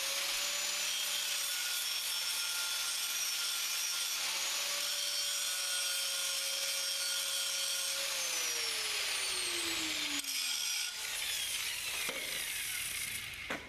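Handheld angle grinder grinding a V-groove into the edge of a steel harvester chain bar, weld preparation for joining two bars. About 8 s in it is switched off and its pitch slides down as the disc spins to a stop, fading out a few seconds later.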